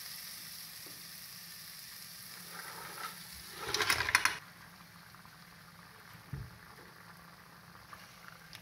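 Tomato-onion masala sizzling in a hot pan. About four seconds in comes a short, loud burst of sizzling and clatter as the cleaned crab pieces go into the masala, then the sizzle settles lower, with a single dull knock a couple of seconds later.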